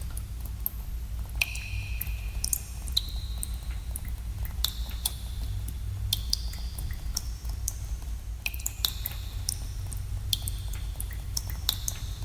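Water drops falling into a pool in a cave, landing irregularly a couple of times a second. Each lands with a sharp plink and a brief ringing tone whose pitch varies from drop to drop. A steady low rumble runs underneath.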